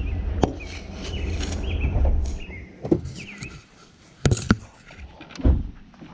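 Low wind rumble on the microphone for the first couple of seconds, with a few short high chirps. Several sharp knocks and clicks follow, the loudest pair about four seconds in and another about a second later.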